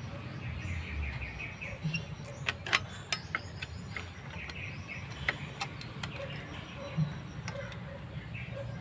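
Small sharp clicks and taps as metal parts on a CRT television's circuit board are handled, scattered irregularly, over a steady low hum. Birds chirp faintly in the background.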